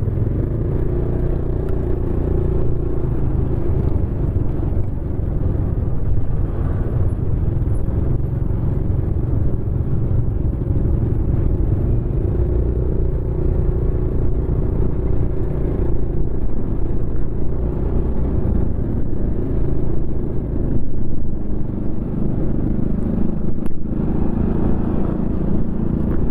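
Motorcycle riding through city traffic: its engine runs steadily under the road noise, with other motorbikes and cars close around. The sound is mostly low and holds level throughout.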